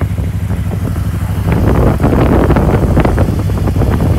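Cruiser motorcycle engine running steadily while the bike rolls along at low speed, with wind rumbling over the microphone that grows louder about a second and a half in.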